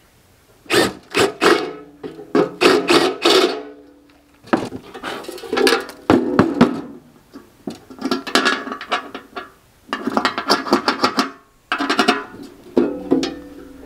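Background music with guitar, strummed in short phrases separated by brief pauses.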